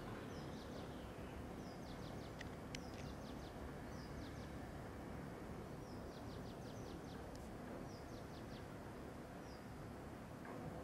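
Quiet room ambience with faint high chirping: short runs of a few quick chirps every second or two, and a couple of soft clicks.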